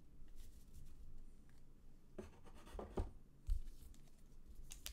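Trading cards being handled: cards rubbing and sliding against each other, and a few light taps as they are set down on a stack on the table between two and four seconds in.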